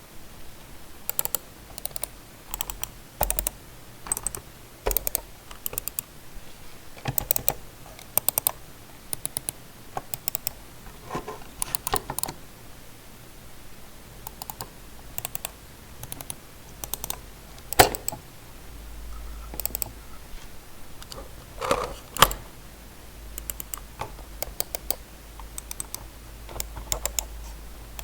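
Budget computer mouse buttons clicking over and over, in irregular runs of quick clicks with pauses between, one or two clicks louder than the rest.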